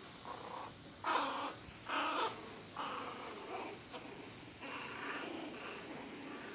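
Young puppies yelping and whining as they play, with a string of short cries; the two loudest yelps come about a second and two seconds in.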